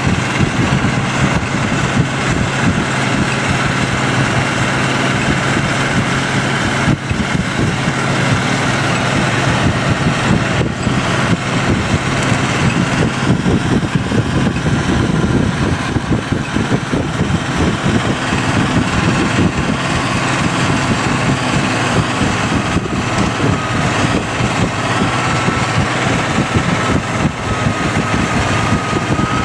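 John Deere 7810 tractor's diesel engine running steadily under load, towing a Strautmann Vitesse silage loader wagon that is lifting grass. A thin, high steady whine comes in about three-quarters of the way through.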